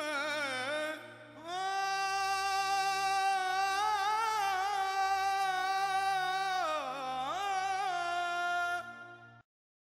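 Background music: a long-held, wavering melody line, voice-like, over a pulsing low bass. It stops abruptly shortly before the end.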